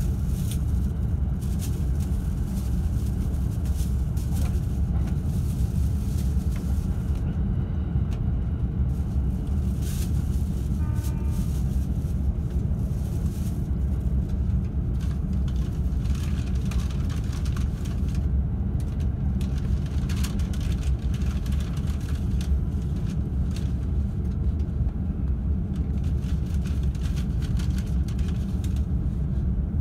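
Steady low rumble of a JR E531-series electric train running on the rails, heard from inside the upper deck of a bilevel Green car, with occasional clicks and a brief high tone about eleven seconds in.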